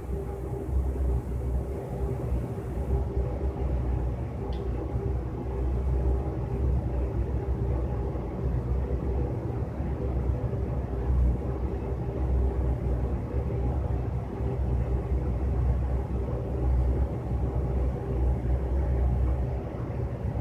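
Steady low rumble with a constant hum underneath, unchanging throughout.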